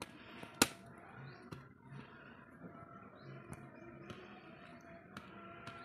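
A machete blade chopping into a tender palmyra palm fruit: one sharp whack about half a second in, then a few lighter taps and knocks.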